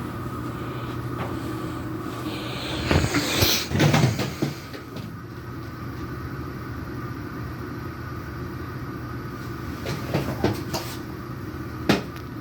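Two cats fighting: a burst of scuffling and thumps about three seconds in, then a few sharp knocks near the end, over a steady background hum.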